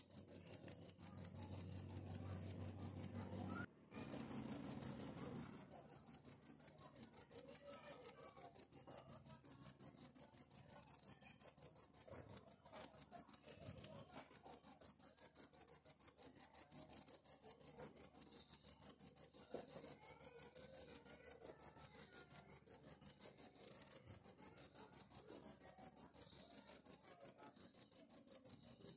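Cricket chirping steadily: a high-pitched trill of rapid, even pulses, cut off briefly about four seconds in and again about twelve seconds in.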